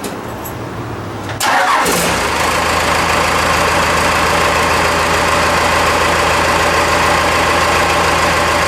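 Cummins diesel engine catching suddenly about one and a half seconds in and settling straight into a steady idle.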